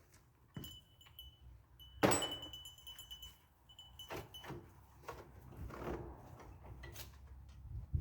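Loose metal parts and tools clinking and rattling as they are handled. A sharp metallic clank about two seconds in rings on briefly, followed by lighter taps and clicks.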